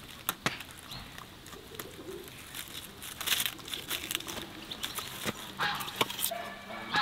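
A dog gnawing dried corn cobs and their papery husks, a run of dry crackles and crunches, with birds calling in the background and a few clearer calls near the end.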